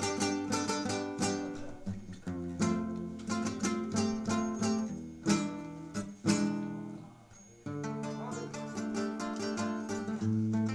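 Acoustic guitar instrumental passage: strummed chords and plucked runs, dropping away briefly about two-thirds through before the strumming picks up again.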